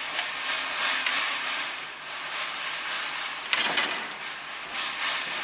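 An iPad power cable sliding and scraping through a hole in a kiosk base, a steady rough rustling with uneven swells and one sharper, louder scrape about three and a half seconds in.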